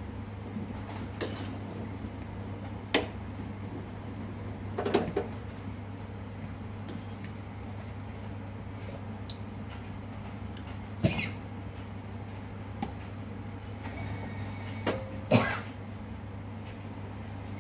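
A pot of sour-curry broth boiling on a gas burner, a steady low hum with bubbling underneath. A few sharp knocks and clicks stand out, the loudest near the end.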